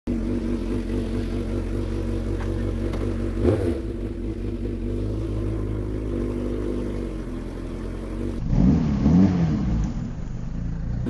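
Sport motorcycle engine idling steadily, with a brief louder blip about three and a half seconds in. From about eight and a half seconds in, its pitch swings up and down as it is revved.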